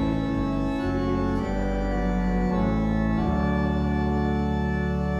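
Church organ playing a hymn tune in sustained chords, changing chord a few times in the first three seconds and then holding one long chord.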